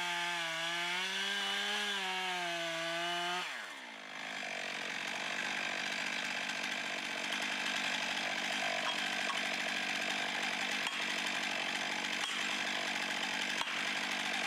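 Stihl MS 661 Magnum two-stroke chainsaw making the back cut to fell a ponderosa pine. The engine note wavers under load, drops away about three and a half seconds in, then picks up again and runs on steadily with the chain in the wood.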